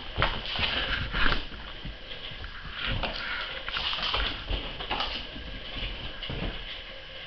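Ragdoll kittens scampering and pouncing: irregular thumps and pattering of paws on the floor, the loudest thump about a second in, over a steady background hiss.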